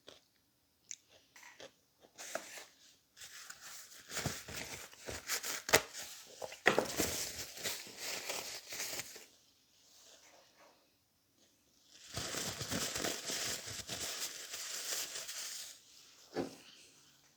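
Close-up chewing and crunching of food, in two long stretches with a quiet pause between.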